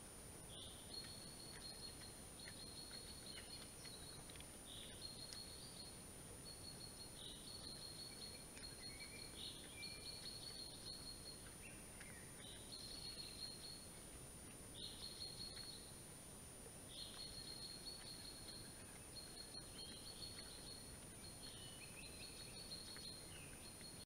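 Songbirds singing faintly in the forest: short high trilled phrases repeated every second or two, over a steady hiss and a thin, constant high-pitched whine.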